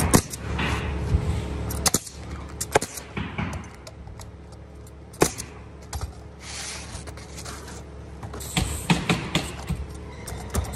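A steady low hum that stops about two seconds in, then scattered sharp clicks and knocks over a quieter background.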